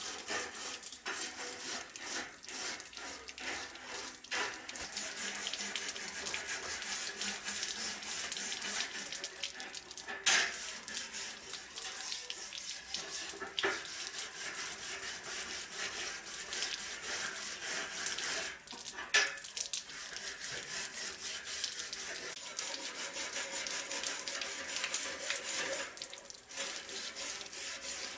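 Wire brush scrubbing a rusty steel dagger blade under running water, with rapid rasping strokes over the splash of the water stream and a few sharper knocks.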